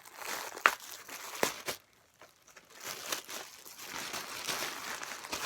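Packaging crinkling and rustling as it is handled and opened. There are a couple of sharp crackles in the first second and a short pause about two seconds in, then steady crinkling.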